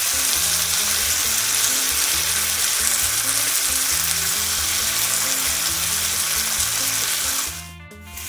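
Pomfret fish frying in butter on a tawa: a steady sizzle that cuts out for about half a second near the end.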